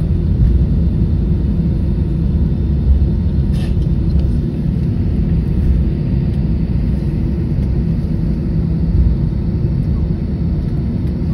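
Steady low rumble of road and engine noise heard from inside a moving vehicle, with one brief click about three and a half seconds in.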